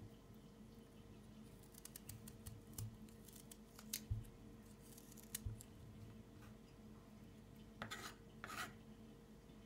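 Kitchen knife cutting a piece of fresh ginger root: faint scraping and ticking strokes, two soft thuds about four and five and a half seconds in, and two louder scrapes near the end.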